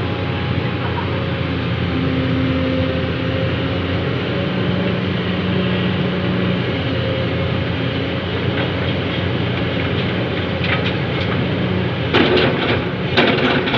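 Heavy diesel machinery running steadily at a constant engine note, from the excavator working while it loads the dump truck. Near the end come a few sharp clanks and rattles.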